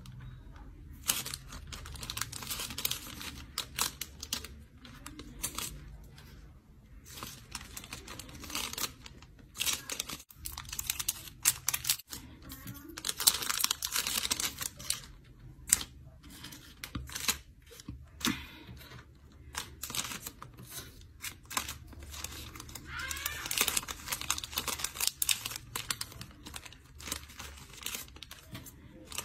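Small clear plastic bags and tiny plastic-film miniature snack packets crinkling and rustling as they are handled, in bursts with short pauses, with light clicks of small pieces.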